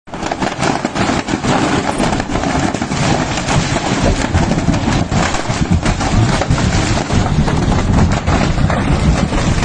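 Fireworks stock going off in a blaze: a dense, continuous crackle of rapid bangs and pops, many per second.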